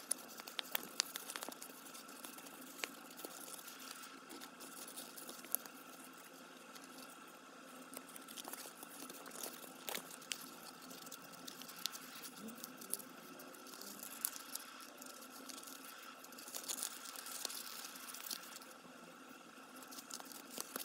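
Faint crinkling and small crackling clicks of folded archival drawing paper as fingers press and adjust the creases of a Miura-ori map fold, scattered irregularly over a faint steady hum.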